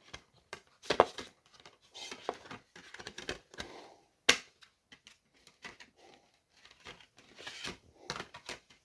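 A plastic DVD box set case handled by hand: scattered clicks and rustles as the hinged inner disc tray is turned over, with two sharper clicks about a second in and near the middle.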